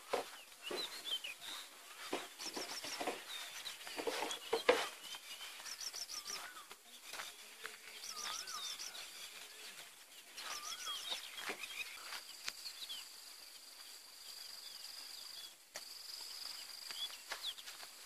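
Wild birds singing and calling, with quick repeated high chirps and rising-and-falling whistles. A steady high note is held through much of the later part. A few sharp knocks stand out near the middle.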